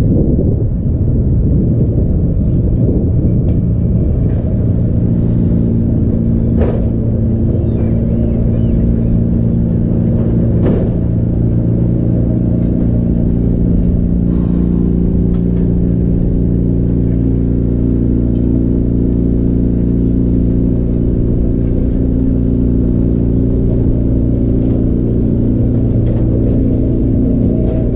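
Vintage tram, Trondheim Sporvei no. 6 (Skabo, 1942), moving slowly on its own power: a steady hum from its motors sets in a few seconds in over a heavy low rumble. Two sharp clicks come about a quarter of the way through and again some four seconds later.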